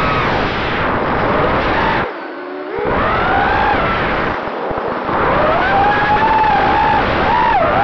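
Brushless motors and propellers of an FPV quadcopter (Emax RS2205 2300 kV motors) whining, the pitch rising and falling with the throttle, recorded by the onboard camera's microphone with heavy wind noise. About two seconds in the throttle drops briefly and the whine fades, then climbs again.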